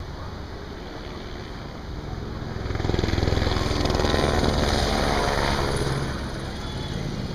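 Police helicopter making a low pass: its rotor beat swells about two seconds in, stays loud for about three seconds, then fades away.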